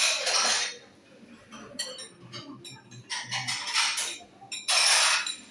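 Eating sounds at a table: three loud, short noisy bursts at the start, about three seconds in and near the end, with light clicks and clinks of cutlery on dishes in between.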